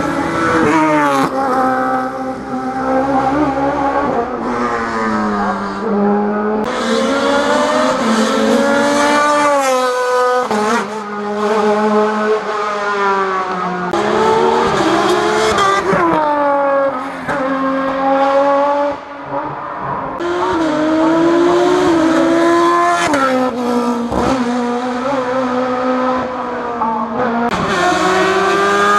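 Rally car engines at a hill climb, revving up through the gears: the engine pitch climbs and drops again and again as the cars accelerate, shift and lift off.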